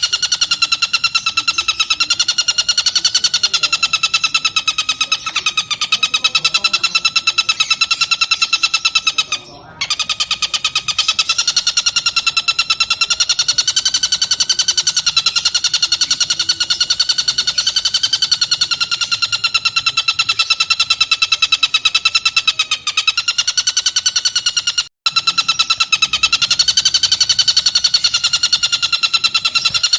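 Tengkek buto kingfisher calling in a continuous, very rapid buzzing trill at a steady, slightly wavering pitch, broken briefly twice.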